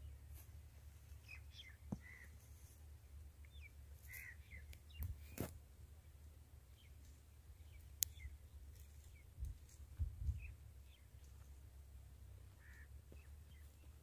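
Faint rural ambience: scattered short bird calls over a low wind rumble, with a few sharp clicks, the loudest about eight seconds in.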